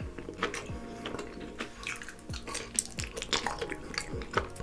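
Close-miked ASMR eating: a man chewing honeycomb, making many short sticky mouth clicks and smacks. Faint background music runs underneath, with a low falling bass thud about every half second to second.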